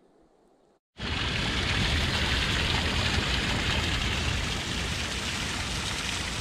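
Small stream of water rushing and splashing down a smooth bedrock slab close by, a steady loud rush that starts abruptly about a second in.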